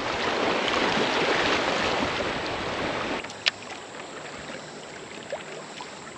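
Creek water rushing around a kayak drifting through current, a steady rush that falls off sharply about three seconds in, followed by a single sharp click.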